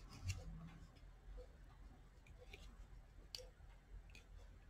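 Faint, scattered clicks of a loom hook knocking against the wooden pegs of a round knitting loom as loops are lifted over the pegs.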